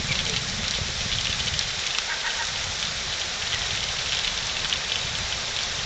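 Hail falling steadily: a dense, even pattering of many small ice pellets striking hard surfaces.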